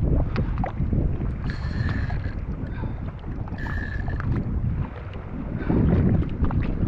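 Wind buffeting the microphone over the wash of water around a jet ski, an uneven rumble. Two brief high-pitched tones sound about two seconds apart, in the first half.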